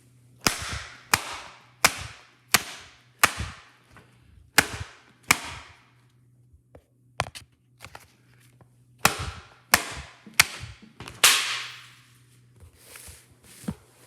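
Loud, sharp bangs, each with a short ringing tail. There is a run of seven, about one every 0.7 seconds, then a pause with a few faint clicks, then four more, the last with the longest tail.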